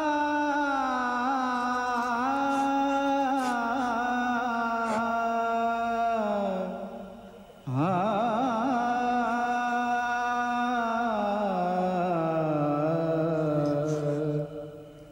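Background music: a slow melody in two long held phrases with wavering pitch, the second coming in about halfway through and fading out near the end.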